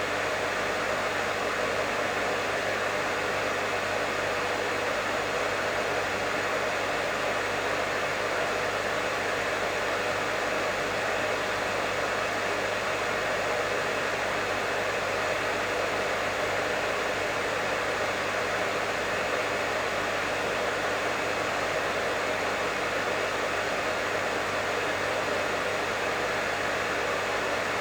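Professional hair dryer running steadily: an even, unbroken rush of blown air over a low motor hum.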